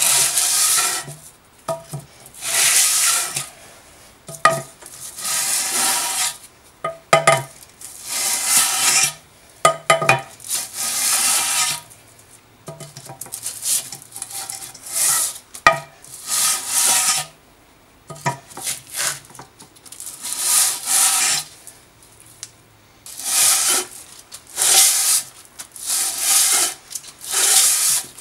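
Cast-aluminium intake manifold of a 1990 Saab 900S being pushed back and forth by hand on a sheet of sandpaper, a rasping scrape with each stroke and short pauses between strokes. The sanding is flattening the manifold's warped gasket face, the cause of a vacuum leak.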